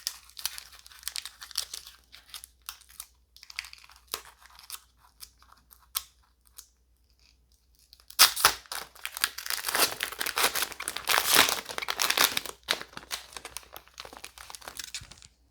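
Trading card booster pack wrapper being torn open and crinkled, with lighter rustling and card handling at first and the loudest tearing and crinkling starting about eight seconds in and lasting some four seconds.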